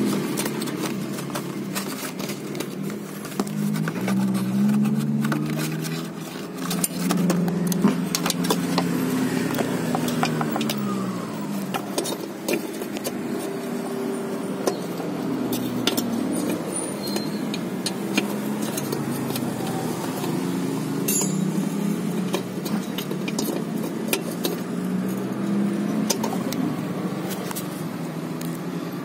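Vehicle engines running nearby, their pitch rising and falling, under scattered small clicks and rattles as a headlamp bulb, its cardboard box and the headlight's socket and wire clip are handled.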